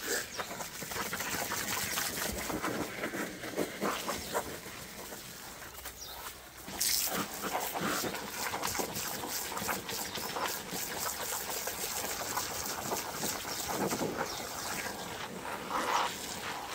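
Garden hose spray nozzle washing down an inflatable Lay-Z-Spa lid: a steady hiss of spray with water splashing off the cover and onto the patio, louder and brighter from about seven seconds in.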